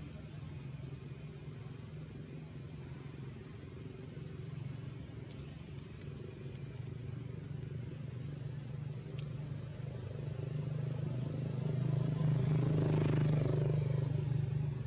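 A motor vehicle's engine running steadily, growing louder over the last few seconds as it passes close, then dropping away.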